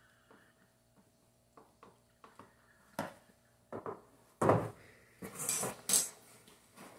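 Hard plastic parts of an infant car seat knocking and clicking as they are handled: scattered light clicks at first, then louder knocks and clatter from about three seconds in.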